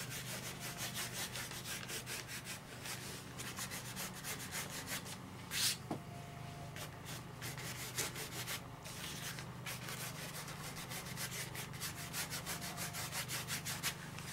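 Paintbrush scrubbing yellow-green paint over a painted surface in quick back-and-forth strokes, several a second, with one louder stroke about six seconds in.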